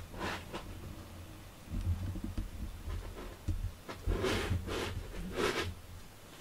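A cat rubbing and brushing against a cardboard cat house: scratchy rustling strokes, the loudest a little after four seconds in and again about a second later, over a low rumble of the cardboard being pushed.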